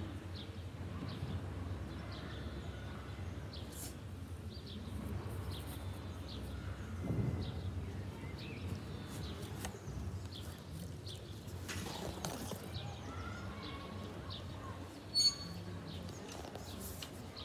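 Small birds chirping repeatedly over a steady low outdoor background hum. A brief, loud high-pitched squeak near the end is the loudest sound.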